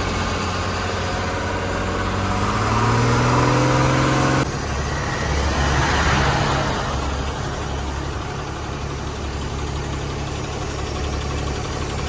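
A broken-down truck's diesel engine revving up, its pitch rising steadily over about four seconds, as air pressure lost through a burst pressure pipe is built back up. After a sudden cut it idles steadily, with a brief rushing hiss partway through.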